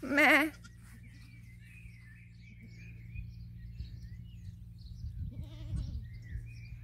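Goat kid bleating: one loud wavering bleat at the start and a softer one about five seconds in, with birds chirping in the background.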